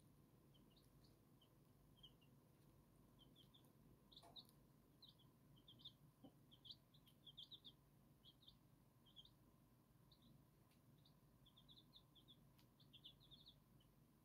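Silver Laced Wyandotte chicks peeping softly: short high cheeps, often in quick runs of two to four, scattered throughout.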